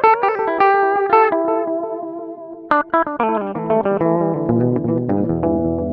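Guitar played through a Moody Sounds Mushroom Echo delay pedal: plucked notes followed by quick, evenly spaced repeats that fade away. A fresh pluck comes a little under three seconds in, and then the repeats step down in pitch and pile up into a low, thick wash.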